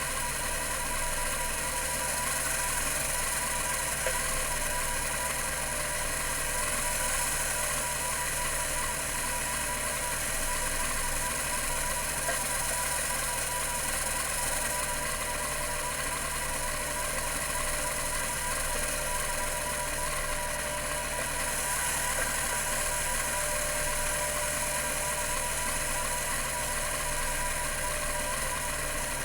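Computer Memories Inc. CM-5412 full-height hard drive running, a steady mechanical hum and whine from its two-platter spindle spinning at 3600 RPM.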